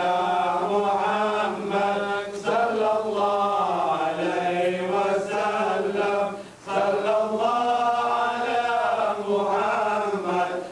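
A single voice chanting Quran recitation in Arabic in long, drawn-out melodic phrases, with a short break for breath about six and a half seconds in.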